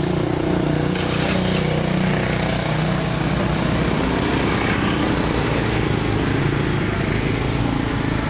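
A small engine running steadily, a constant low hum with no breaks.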